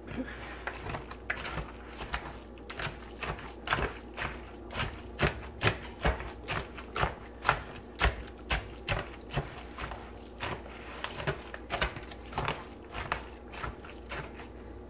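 Hand chopper striking down repeatedly through moist cornbread dressing in a plastic mixing bowl, a steady run of dull knocks about three a second as the cornbread is broken up.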